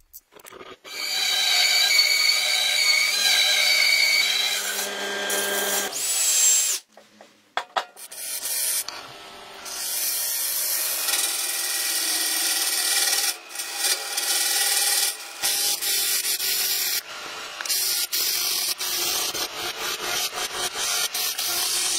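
Wood lathe turning a large wooden disc while a turning tool scrapes across its face, giving a continuous dry scraping hiss broken by frequent small clicks. For the first few seconds a machine runs with a steady whine.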